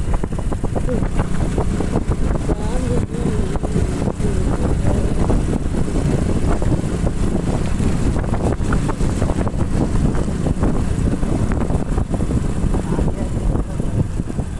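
Small motorcycle engine running steadily while being ridden at road speed, with wind rushing over the microphone.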